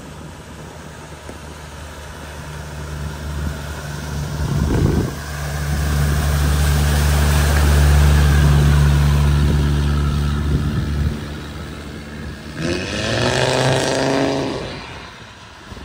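A vehicle driving through flood water: a steady engine note with water rushing, swelling to a peak and then fading. Near the end an engine revs up, its pitch rising.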